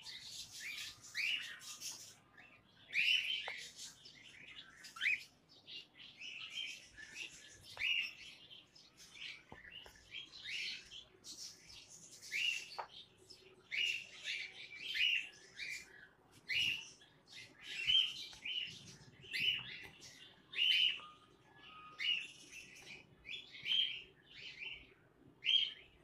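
A cockatiel calling over and over in short, scratchy chirps, roughly one a second.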